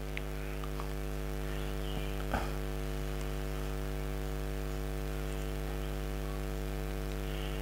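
Steady electrical mains hum in the sound system, with one light tap a little over two seconds in.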